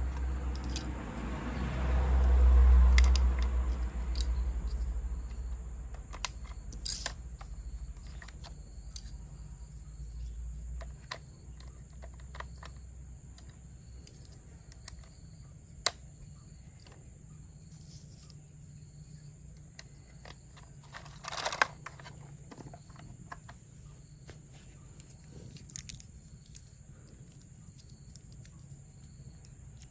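Hands handling plastic toy-train parts and packaging during assembly: a low handling rumble in the first few seconds, then scattered clicks and taps, with a short cluster of knocks a little past the middle.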